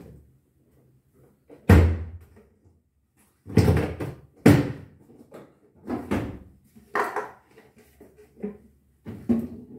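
A series of knocks and thuds, about seven sharp hits spaced roughly a second apart, from things being handled and knocked against a front-loading washing machine.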